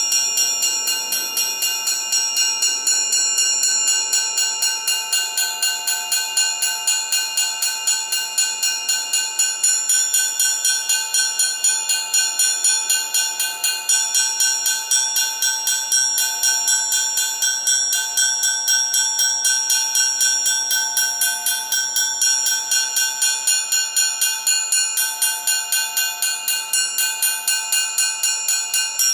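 Amplified orchestral triangle beaten in a fast, even tremolo, its many high ringing overtones sustained together; some overtones fade in and out as the player's damping hand shifts on the triangle.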